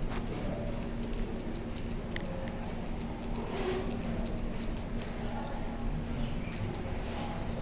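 Hands pressing and rubbing on a person's head and neck during a massage-style treatment, heard as quick irregular light clicks and rustling, over a steady low hum.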